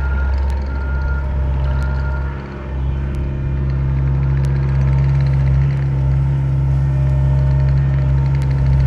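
Diesel engine of a rented Gehl skid steer running steadily. It eases off briefly about two and a half seconds in, then picks back up. The last beep of its reversing alarm sounds right at the start, and a few sharp clicks are scattered through.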